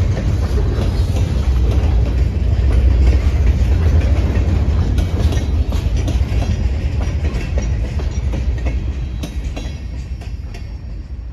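Tail end of a freight train rolling past: gondolas and a last flatcar give a steady low rumble of steel wheels with clicks over the rail joints. The sound fades away in the second half as the last car passes and recedes.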